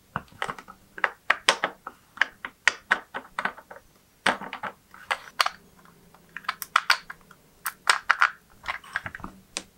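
Irregular hard plastic clicks and clacks, sometimes several in quick succession, as 3D-printed PLA gears are handled and snapped onto a printed gearbox housing.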